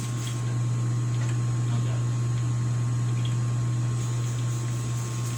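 Steady low electric motor hum, unchanging throughout, with a few faint ticks.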